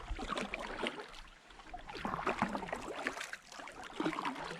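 Water splashing and trickling around a kayak, with many small irregular drips and light knocks close to the microphone.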